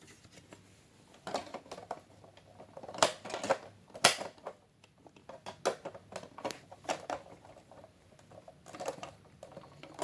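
Hard plastic toy parts clicking and knocking as an add-on foot piece is hooked onto a Transformers figure's leg: a string of irregular clicks, the loudest about three and four seconds in.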